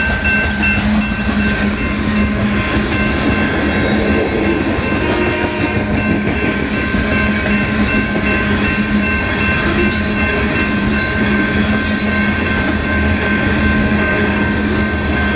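Long coal train of open-top gondola cars rolling past steadily, wheels clicking over the rail, with a steady high ringing tone running through it.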